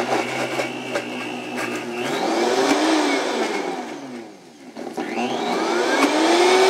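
High-powered countertop blender running on a thick avocado dressing, its motor pitch rising and falling twice as the speed dial is turned up and back down. The thick mix is not blending smoothly, 'one stubborn avocado'.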